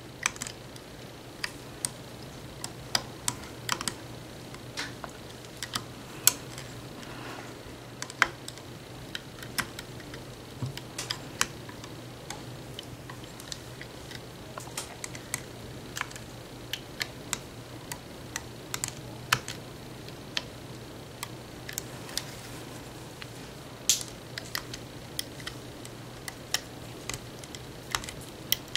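Irregular sharp clicks and light taps, one or two a second, as a metal hook works rubber bands up and onto the pegs of a plastic bracelet loom and the bands snap into place. A low steady hum runs underneath.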